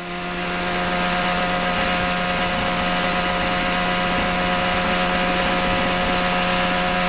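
Mosquito ultralight helicopter's MZ202 two-stroke twin engine and rotor running at a steady speed, fading in over the first second.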